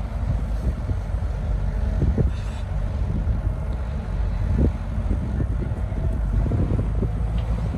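Heavy diesel earthmoving machinery running steadily, with a few short knocks and clanks.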